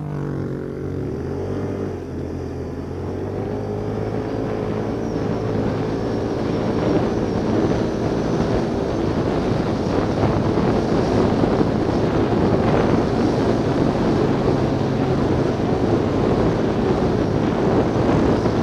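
ATV (quad bike) engine running under throttle as the rider drives across open ground. Its note wavers in pitch at first, then is buried under a rush of wind on the helmet-mounted microphone that grows louder as speed builds.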